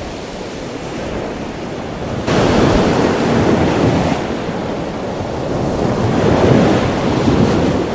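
Steady rushing water noise, growing louder about two seconds in; no penguin calls.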